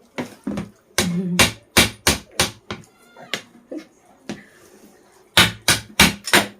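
A toddler's short, loud shouts and squeals in quick bursts, about six in the first two and a half seconds, a rising squeal around three seconds in, and four more quick ones near the end.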